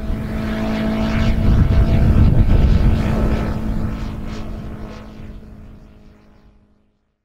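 Engine and propeller of a small fixed-wing UAV droning overhead: a steady pitched hum that grows louder over the first couple of seconds, then fades out.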